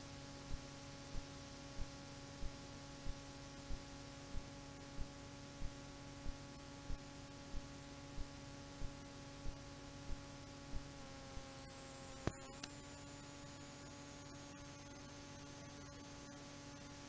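Faint steady electrical hum with faint regular ticks, about three every two seconds. The ticks stop after a sharper click about twelve seconds in, leaving the hum alone.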